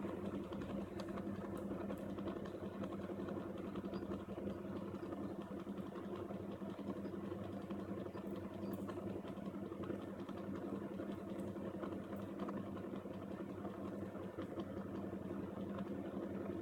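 Small electric fan running with a steady hum, blowing away flux fumes during soldering.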